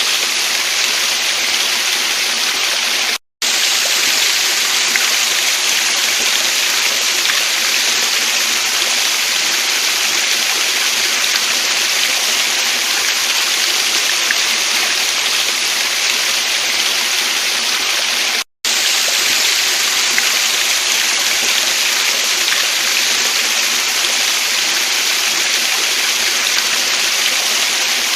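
Steady rushing of a waterfall and stream, with the sound cutting out completely for a split second twice.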